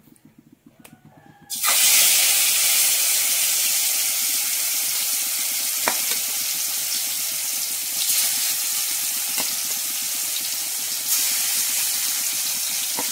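Marinated chicken pieces go into hot oil in a metal wok and start sizzling suddenly about a second and a half in, a loud steady frying hiss. A slotted spoon clicks against the pan a few times as the pieces are stirred.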